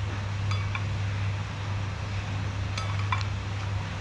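Metal spoon clinking against a glass soup bowl while eating: two ringing clinks about half a second in and two more around three seconds in, over a steady low hum and hiss.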